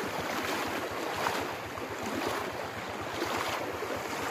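Steady rush of floodwater running across a dirt road, mixed with wind on the microphone.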